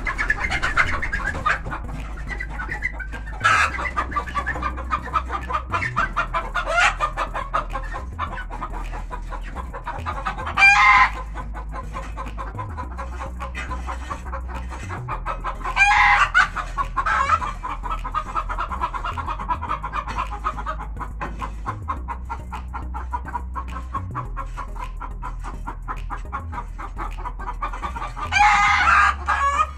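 Chickens clucking steadily, with four short, loud calls from the flock standing out over the chatter.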